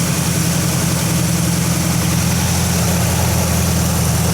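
Cold 1960s Pontiac engine with points ignition idling steadily, running off fuel from a gas can plumbed straight to the fuel pump.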